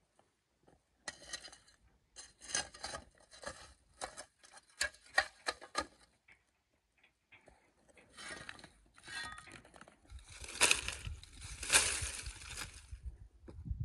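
A shovel scraping up lumps of charcoal and tipping them onto a pit, the charcoal clattering and clinking in scattered bursts. Near the end comes louder rustling and crackling as dry thatch is piled over the pit.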